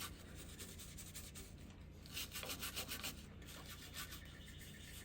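Soft nylon-bristle brush scrubbing quickly back and forth in the jaw channels of a Vicmarc VM150 wood-lathe chuck body, brushing out dust. The strokes are faint and come about six a second, in spells.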